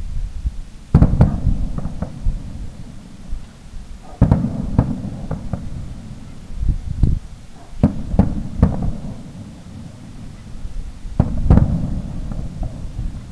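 Aerial firework shells bursting in a string of booms a few seconds apart, often two close together, each trailing off in a low rumble.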